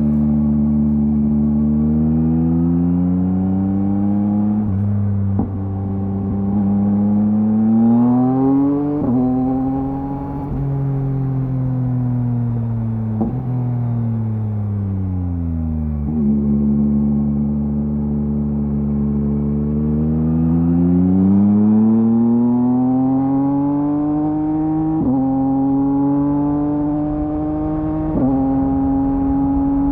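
A 2023 Yamaha MT-09's 890 cc inline three-cylinder engine through a LeoVince LV Race full exhaust, revving up and easing off repeatedly under way. Its pitch climbs and falls, broken by several abrupt gear changes.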